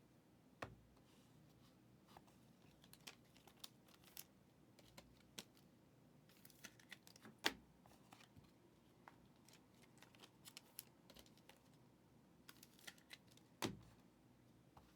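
Faint, scattered clicks and taps of trading cards being handled, slid and set down, with a louder tap about halfway through and another near the end.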